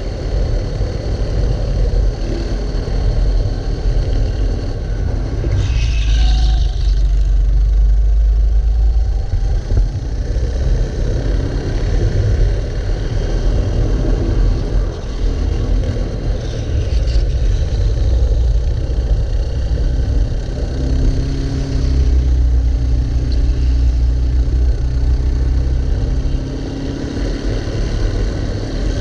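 Racing kart engine at speed heard from on board, the revs rising and falling through corners, with a heavy low rumble.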